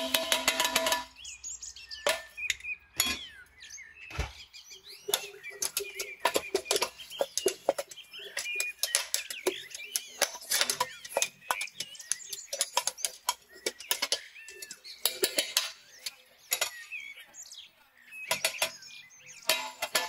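Stainless steel flour sifter and mesh sieve clicking and tapping irregularly, several knocks a second, as ground walnut shell powder is sifted through. Birds chirp in the background.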